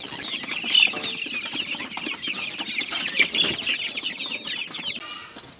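A flock of month-old Improved Kienyeji chicks peeping: a dense chorus of many short, high chirps overlapping one another.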